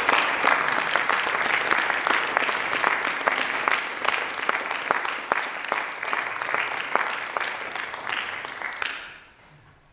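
Audience applause, dense clapping that dies away about nine seconds in.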